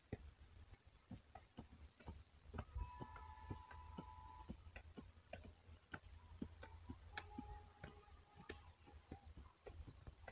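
Faint, irregular clicks and scrapes of a small hand hoe striking and dragging through dry, lumpy soil as furrows are cut. Twice, about three and seven seconds in, a faint held tone sounds for a second or two.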